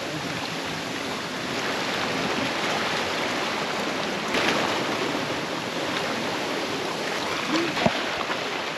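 Surf washing and churning among shoreline rocks, a steady rush of white water, with a short voice and a sharp knock near the end.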